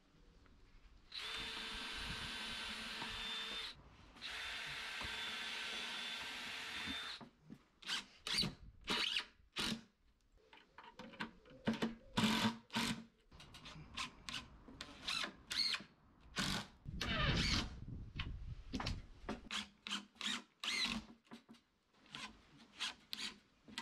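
Cordless drill driving screws through OSB board into timber. The motor runs steadily twice for a few seconds each, then comes in many short bursts of the trigger as the screws are driven home.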